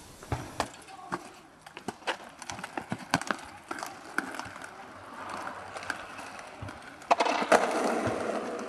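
Irregular knocks and clicks as boys climb over a metal gate, then inline skate wheels rolling on asphalt, louder from about seven seconds in.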